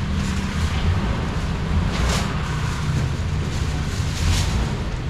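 Street-market ambience: a steady low rumble with a crowd's background noise, and two brief louder sounds about two and four seconds in.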